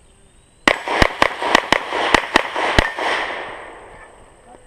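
Rapid string of about eight 9mm pistol shots from a Glock 34, starting under a second in and spaced a fraction of a second apart, with the report echoing and dying away after the last shot.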